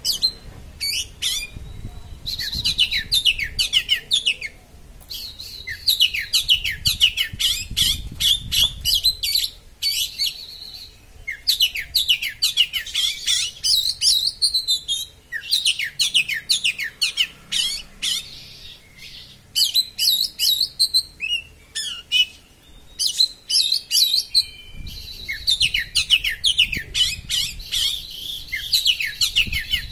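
Oriental magpie-robin singing a sharp, fast 'konslet' song: phrases of rapid down-slurred whistled notes, each several seconds long, broken by brief pauses.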